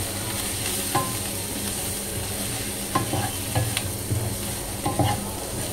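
Paneer, onions and capsicum sizzling in oil in a non-stick wok while a wooden spatula stirs them, with a few sharp taps and scrapes of the spatula against the pan.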